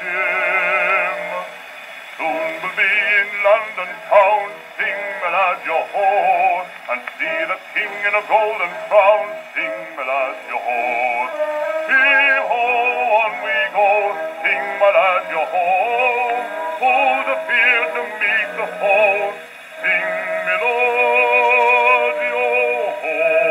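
A pre-1920 78 rpm shellac record played on a wind-up portable gramophone: a male bass voice sings a nautical music-hall song with a wide vibrato over accompaniment. It comes through the gramophone's soundbox with no deep bass and no high treble.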